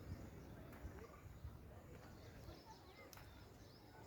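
Faint outdoor ambience with scattered short bird chirps over a low rumble, and a couple of soft clicks.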